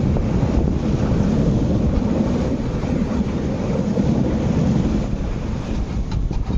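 MTR East Rail Line R-train, a 9-car electric train, running past at about 100 km/h: a steady low rumble of wheels on rail, mixed with wind buffeting the microphone.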